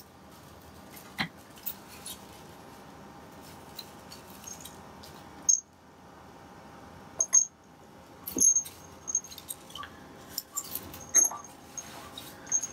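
A kitten's collar jingling in short, high tinkles as the kitten steps along a wooden shelf and climbs down onto a cabinet, with light knocks of its paws on the wood scattered among them.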